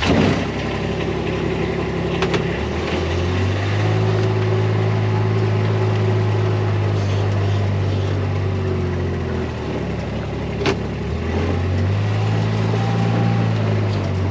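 A vehicle engine running as it is driven off, its note picking up about three seconds in, easing off around ten seconds and picking up again. A sharp knock comes at the very start and a single click later on.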